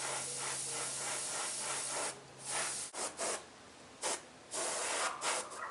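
Airbrush spraying paint in bursts: one long hiss of about two seconds, then several short ones. A low steady hum underneath stops about three seconds in.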